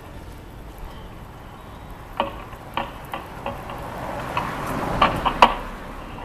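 Irregular knocks and clicks from an acoustic guitar and music stand being handled between songs, over steady street noise that swells about five seconds in.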